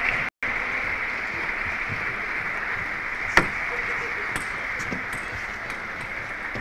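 Steady hubbub of a crowd in a sports hall, with a single sharp click of a table tennis ball about three and a half seconds in. The sound drops out completely for a moment just after the start.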